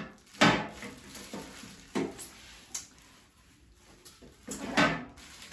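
Packaging being handled while a metal toolbox is unboxed: rustling and scraping with a few sharp knocks, the loudest about half a second in and again near the end.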